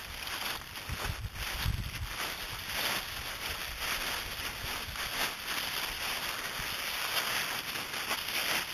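Dry fallen leaves rustling and crackling as Yorkshire terrier puppies scamper and tumble through them, with a few low bumps on the microphone between one and two seconds in.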